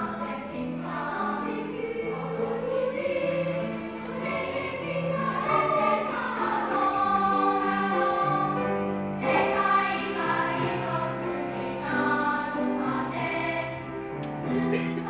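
Elementary-school children's choir singing in parts, with several voices sounding together on long held notes.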